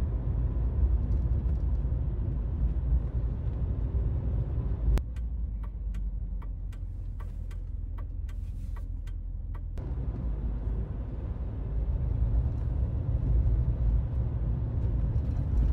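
Classic Mercedes-Benz coupé driving: a steady low rumble of engine and road noise. About five seconds in, the sound becomes the quieter hum inside the cabin with a run of light ticks, about three a second. Near the ten-second mark the heavy rumble returns.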